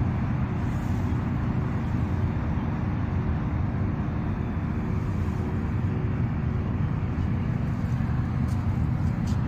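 A motor running steadily: a loud, even low hum with a constant drone.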